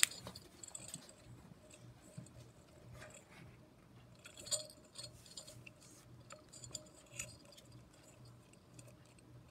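Faint scattered clicks and clinks of small parts and tools being handled, the loudest about four and a half seconds in.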